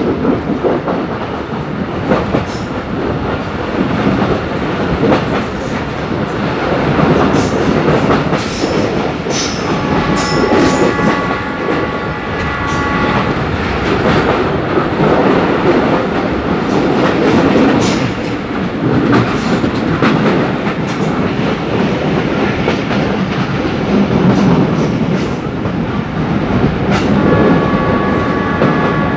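Moving train heard from a passenger coach: a steady loud rumble of wheels running on the rails, with scattered clatters. A diesel locomotive's horn sounds as a steady multi-note chord for about three seconds a third of the way in, and starts again near the end.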